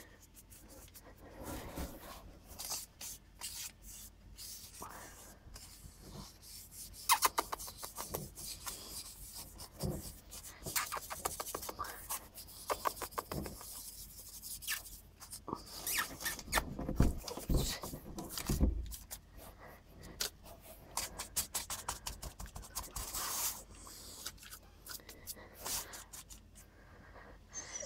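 Dog scratching and scraping at a tiled floor in quick, irregular runs of strokes, with a few dull thumps about two-thirds of the way through.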